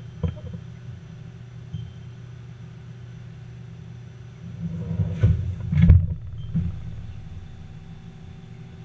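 Sliding door of a Haas ST10 CNC lathe rolling shut about halfway through, ending in two knocks, the second and louder one as it closes, then a smaller knock. A steady low machine hum runs throughout.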